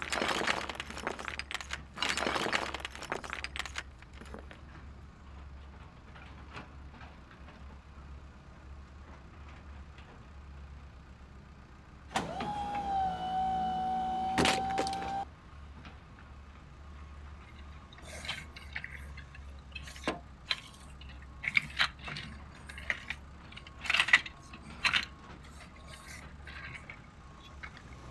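Plastic Lego Duplo bricks scraping and clattering as a toy loader-dump truck is pushed into them and its dump bed tipped: a scrape at first, then scattered clicks and knocks. Near the middle a steady pitched tone is held for about three seconds.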